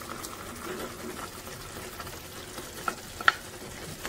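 A wooden spatula scrapes fried chicken pieces from a glass bowl into a pan of thick tomato sauce and stirs them, with a wet squelching of the sauce throughout. Two sharp knocks of the spatula on the cookware come about three seconds in, the second one louder.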